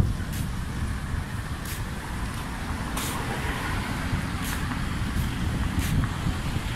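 Road traffic: cars and taxis running past, a steady rumble of engines and tyres, with a few short faint clicks.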